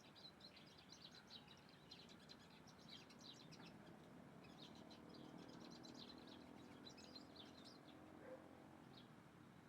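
Small birds chirping faintly: many short, high notes in quick clusters, thinning out towards the end.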